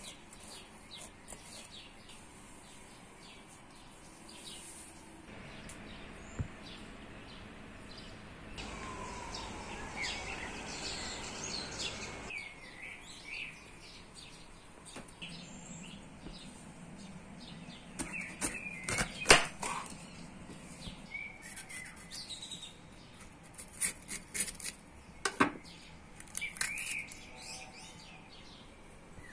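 Birds chirping in the background, with short scattered calls throughout. Several sharp clicks and knocks come about two-thirds of the way in and again near the end.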